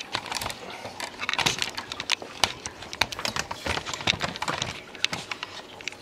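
Irregular clicks, taps and rustles of handling, many small knocks a second with no steady sound under them: the camera being handled and moved about.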